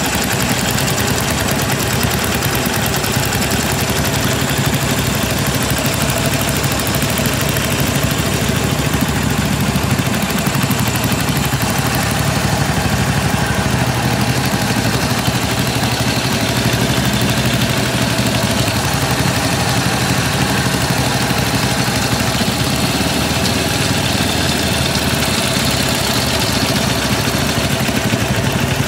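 Motorcycle engine idling steadily, with no revving.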